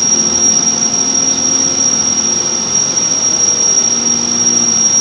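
Car driving, heard from inside the cabin: steady engine hum and road noise, with a steady high-pitched whine over it.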